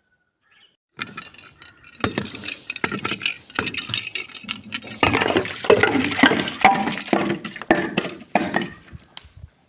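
Glass being crushed: a dense run of sharp cracks and crunching with clinking shards, starting about a second in and loudest in the second half.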